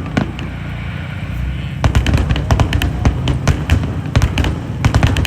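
Fireworks going off in rapid crackling volleys: a couple of sharp pops near the start, then a dense run of quick reports from about two seconds in, over a steady low rumble.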